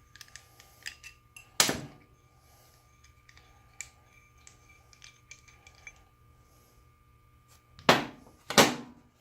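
Steel machinist jacks and a wrench being handled: small metallic clicks and ticks, with three sharp metal knocks, one about a second and a half in and two close together near the end.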